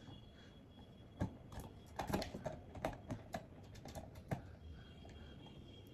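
Plastic parts of a table fan clicking and knocking as they are handled and fitted together: a run of sharp clicks in the middle, quieter at the start and end.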